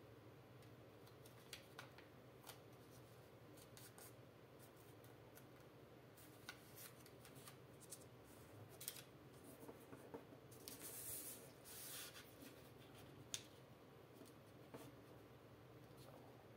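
Faint crinkling and creasing of thin origami paper as a folded strip is pleated back and forth and its folds are pressed flat with the fingers. Scattered small crackles and clicks, with a longer rustle of paper sliding a little past the middle.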